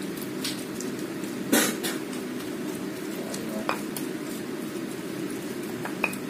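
Stone pestle (ulekan) grinding a wet tomato and chili sambal terasi in a stone mortar (cobek): a steady wet crushing and squishing, with a few sharp stone-on-stone knocks, the loudest about one and a half seconds in.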